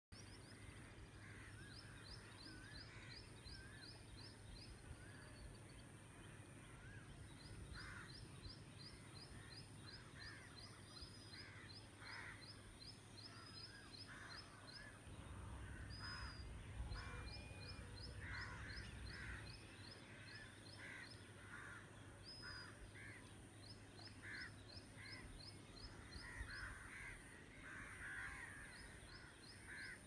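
Faint dawn chorus of birds, including Asian koels, with many short calls overlapping throughout. A rapid ticking trill repeats in runs of about two seconds, over a steady high-pitched whine.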